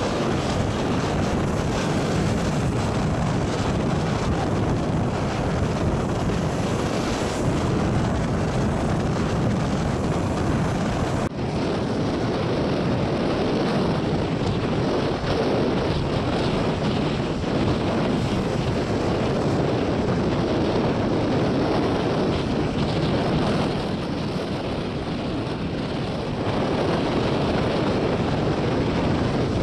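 Storm wind blowing on the microphone over heavy surf breaking against a rocky jetty, a steady, loud, even rush. The recording cuts abruptly about eleven seconds in and carries on the same.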